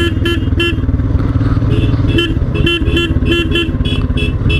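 Royal Enfield Himalayan's single-cylinder engine running under way, with a vehicle horn sounding in many quick short beeps over it, several a second.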